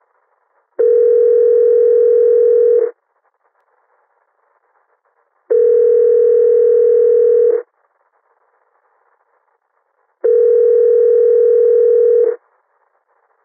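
Telephone ringback tone heard on the line, ringing three times. Each ring is a steady electronic tone of about two seconds, with a faint line hiss in the gaps: a call going through and waiting to be answered.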